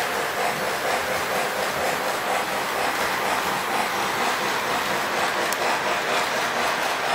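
Model train running on the layout's track: a steady rumble of wheels and motor.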